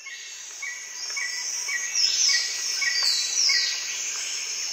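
Forest ambience of birds and insects: a steady high insect drone, a short bird chirp repeating about twice a second, and two downward-sweeping high calls. It swells up from silence over the first second.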